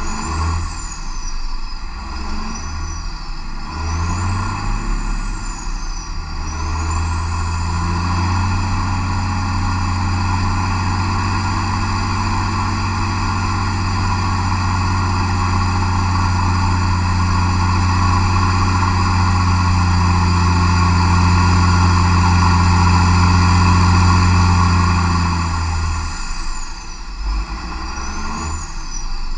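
MAN D2876 LF05 12.8-litre inline-six turbodiesel running under load on an engine dynamometer. About seven seconds in it rises in speed and holds a steady, heavy drone under high load, getting slowly louder. About 26 s in it drops back to a lower, uneven running sound as the load comes off.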